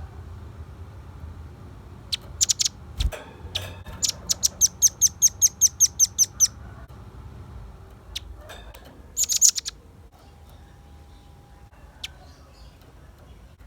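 Velvet-fronted nuthatch calling in sharp, high chips: a few single notes, then a fast even trill of about a dozen notes at roughly five a second, a short rapid burst about nine seconds in, and a lone chip near the end.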